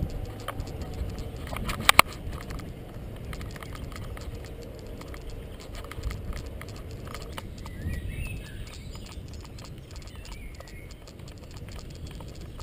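Bicycle rolling along the viaduct's path, rattling with rapid small clicks and a low rumble underneath. There are two louder clacks about two seconds in.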